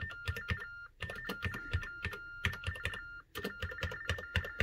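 Plastic keys clattering on an Ultratec Supercom TDD's keyboard while its speaker sends the typed characters as warbling beeps: two high tones alternating rapidly, the TTY's Baudot data signal. The beeps come in runs, broken by short pauses about one and three seconds in.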